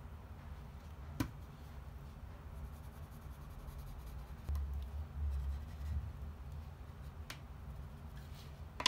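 Quiet handling while pencil-tracing paper pattern pieces onto a wooden board and moving the pattern weights: a sharp click about a second in and another about seven seconds in, with low bumps about halfway, over a low steady hum.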